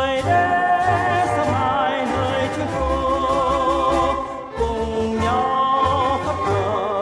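Vietnamese patriotic song: a male singer holds long notes with a wide vibrato over an orchestral accompaniment with a pulsing low bass.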